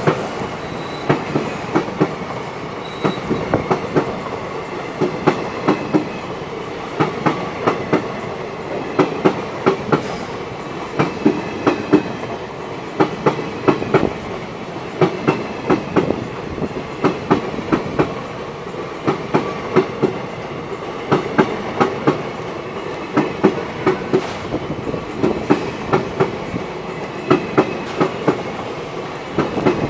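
Train of high-capacity parcel vans passing at speed, their wheels clattering over the rail joints in quick clusters of clicks that repeat van after van over a steady rolling rumble.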